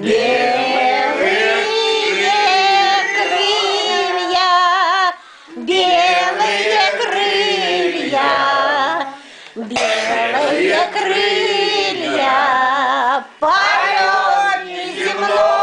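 A man and women singing a slow Russian song together, in phrases of about four seconds with short breaks for breath between them.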